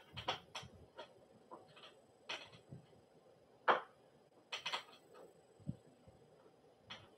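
Irregular light clicks and short scuffs of hands working parts into a fabric-sided bassinet, the loudest about three and a half seconds in.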